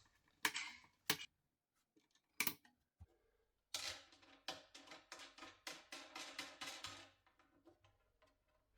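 Knocks and taps on the panels of a flat-pack cabinet being assembled. There are a few separate sharp knocks, then a run of about ten quicker ones, roughly three a second, which stops after a few seconds.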